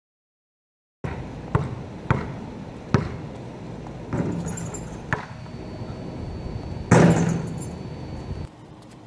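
A basketball bouncing on asphalt: several sharp single bounces, then a louder, longer hit about seven seconds in, after a silent first second.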